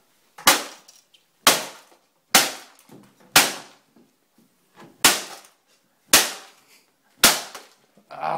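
A wooden cane smashing into a plastic printer casing: seven hard cracks about a second apart, with a longer gap after the fourth, each fading quickly.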